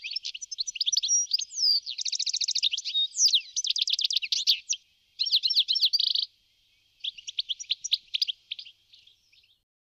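European goldfinch singing: a fast, continuous twittering song of varied chirps, short trills and quick pitch glides. It breaks off briefly a little after six seconds in, resumes, then stops just before the end.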